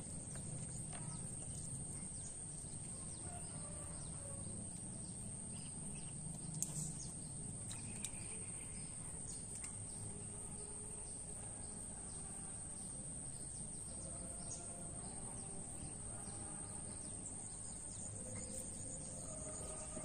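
Faint outdoor ambience: a steady high-pitched insect drone with scattered bird chirps over a low background rumble, and a light knock about seven seconds in.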